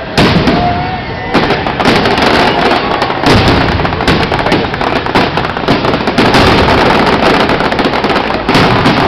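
Aerial fireworks bursting overhead. There is a loud bang just at the start, then from about a second and a half in a dense, rapid barrage of bangs and crackling.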